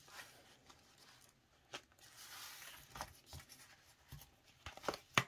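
Hands handling an A6 budget binder: its plastic cash envelopes and pages rustling as they are flipped, with several soft clicks and one sharper click near the end.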